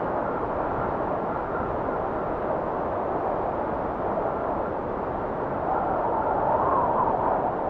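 Wind blowing steadily, swelling into a louder gust with a higher howl about six seconds in.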